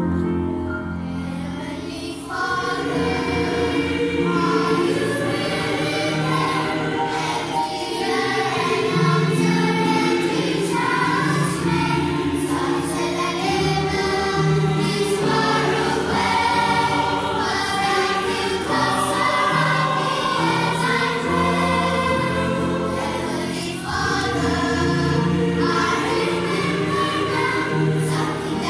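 Children's choir singing a slow song over keyboard accompaniment, the voices coming in about two seconds in after a few accompaniment notes.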